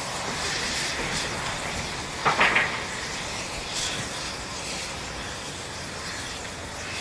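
Steam locomotive working slowly, its steam exhaust chuffing and hissing, with one brief louder burst a little over two seconds in.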